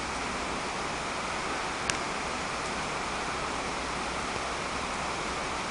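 Steady hiss of heavy rain falling on floodwater, with a single brief click about two seconds in.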